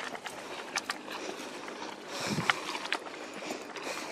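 Footsteps of people walking on a dirt trail: irregular short crunches and clicks, with a brief low rumble about two seconds in.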